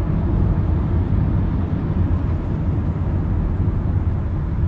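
Steady low rumble of a car heard inside its cabin: engine and road noise with no sudden sounds.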